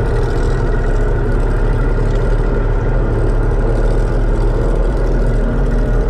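Race boat's outboard engine running steadily at a constant pitch, heard loud from inside the cockpit.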